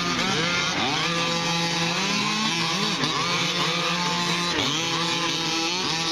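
Several 1/5-scale gas RC trucks' small two-stroke engines racing together, each revving up and dropping back over and over as the trucks accelerate and slow through the turns.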